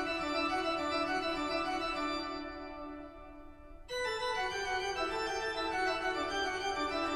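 Organ music: held chords that die away, then a new chord starts abruptly about four seconds in and holds.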